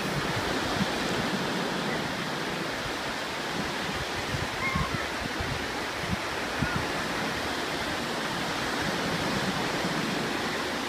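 Steady rush of surf breaking on a sandy beach.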